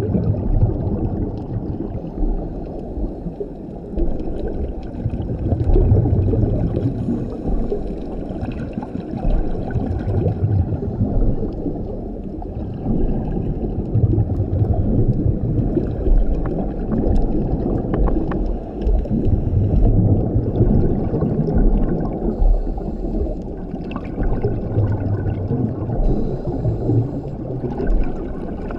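Scuba diver's regulator breathing and exhaled bubbles recorded underwater, a muffled gurgling rush that swells every four or five seconds with each breath.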